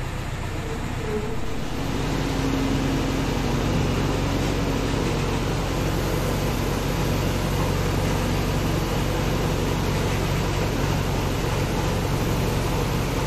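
Backhoe loader's diesel engine running with a steady low hum, getting louder about two seconds in and then holding level.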